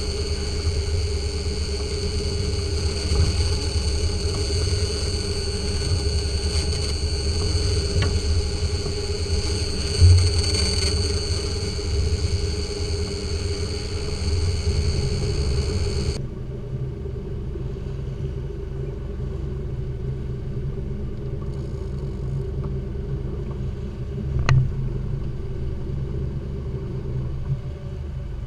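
Volvo Penta D4-225 diesel inboard running steadily while the boat trolls, with water rushing along the hull and a steady high whine over the engine hum. A little past halfway the whine and the water hiss drop out abruptly, leaving a duller engine hum.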